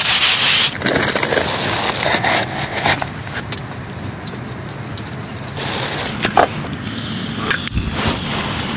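Snow being scraped and pushed along by a gloved hand, a loud rough rubbing that stops about a second in. Then scattered clicks and clatter as a small portable gas heater is fitted onto its gas canister, with a few sharp clicks near the end.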